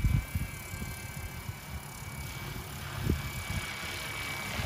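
Distant electric RC helicopter (Flywing FW450) in flight, its motor and rotor giving a faint steady high whine that becomes clear about halfway through. Irregular low rumbling of wind on the microphone is the loudest sound.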